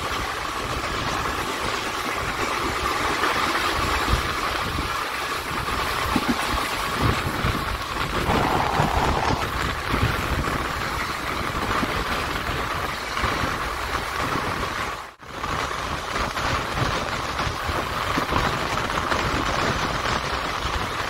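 Express train running, heard from on board a passenger coach: a steady rumble of wheels on the rails with rushing air. It breaks off for a moment about fifteen seconds in.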